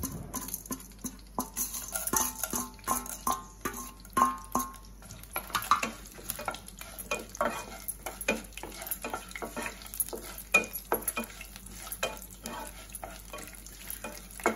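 Wooden spatula stirring and tapping in a nonstick kadai, many short clicks and scrapes, while chana dal, urad dal, dried red chillies and bay leaves fry in hot oil with a light sizzle: the tempering stage of jeera rice. At the start the dals are pushed off a steel plate into the pan.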